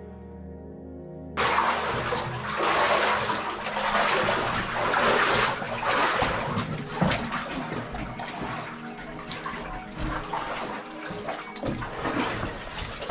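Water splashing and sloshing in a flooded mine tunnel, starting suddenly about a second in and going on irregularly, as of people wading through it.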